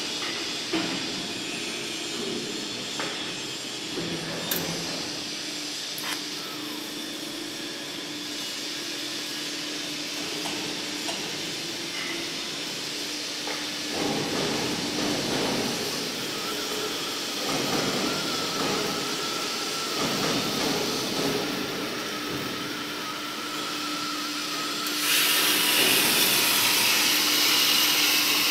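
Steady workshop hum with a few sharp clicks in the first seconds. About 25 s in, a loud, steady gas hiss starts and holds: the oxy-fuel torch of a CNC flame cutting machine burning.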